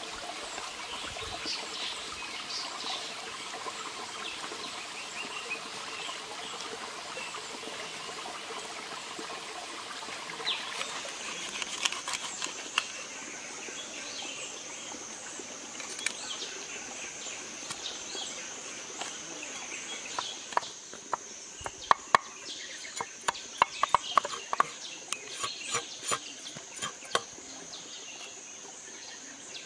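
A stream running over rocks with birds calling, then a large knife scraping and tapping against fish on a cutting board as the fish are cleaned, with a quick run of sharp scrapes and taps near the end.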